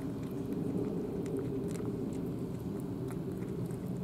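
Two cats eating cat food from bowls: scattered small crunching and chewing clicks over a steady low rumble.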